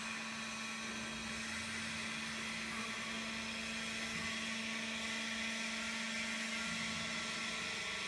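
Hydraulic power unit of a vertical baling press running: electric motor and hydraulic pump making a steady whir with a steady hum, which breaks off near the end.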